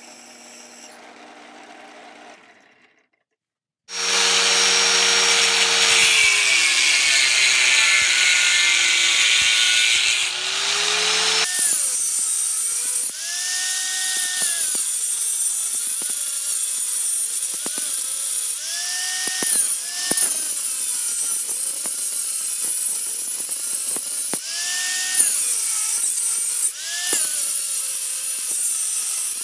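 Power tool cutting or grinding 3/8-inch mild steel. After a brief silence it starts loud with a high hiss. Later its motor pitch dips and recovers again and again as the tool is pressed into the steel.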